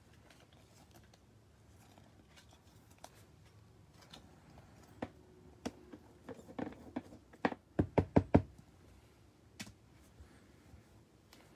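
Trading cards handled and set down on a tabletop: faint clicks at first, then sharp taps and knocks from about five seconds in, the loudest a quick run of about five a little before the end, and one more knock a second later.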